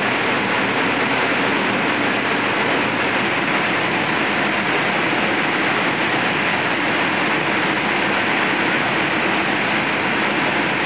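Steady loud rushing of the electric air blowers keeping the inflatables pumped up, an even drone with no change.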